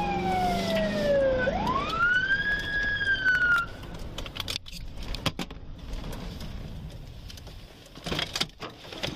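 Police car siren wailing: one long falling tone, then a sweep up and a slow fall, cut off about three and a half seconds in. After that the patrol car runs on with a few sharp clicks and knocks from inside the cab.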